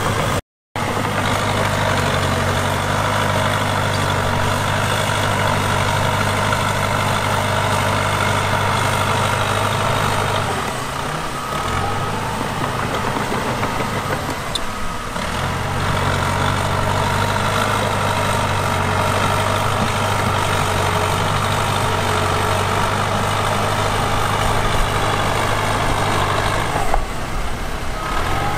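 Diesel engine of heavy earthmoving equipment running steadily, its note dipping briefly about ten seconds in, again around fourteen seconds, and near the end before picking back up.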